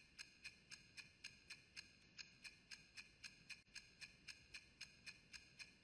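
Faint, quick, evenly spaced ticking, about four to five ticks a second, like a clock ticking in a quiet room.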